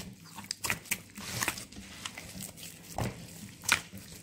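Hands mixing and squeezing wet, sticky yeast dough in a wooden bowl: irregular squelches and slaps, with a couple of louder ones near the end.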